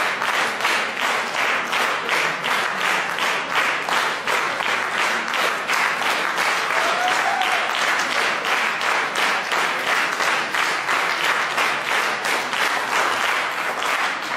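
Audience applauding a choir. The clapping falls into a steady rhythm of about three claps a second.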